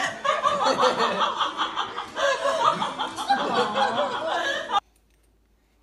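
Laughter, a quick run of chuckles and giggles, cutting off abruptly almost five seconds in and leaving near silence.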